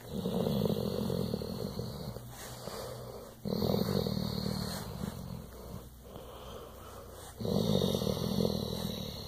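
Brindle pit bull making a purr-like rumble as it breathes, in three long waves that each start suddenly and fade out over a couple of seconds.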